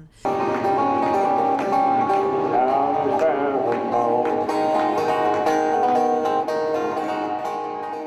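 Wooden train whistle blown in long held chord-like tones, imitating a train horn, over strummed acoustic guitar. The tones start suddenly just after the beginning and waver in pitch about three seconds in.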